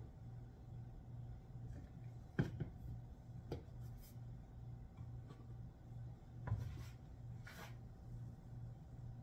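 Workbench handling sounds: a sharp knock about two and a half seconds in and another about six and a half seconds in, with light rubbing and scraping as a plastic glue bottle and pine boards are moved on the bench, over a low hum that throbs about twice a second.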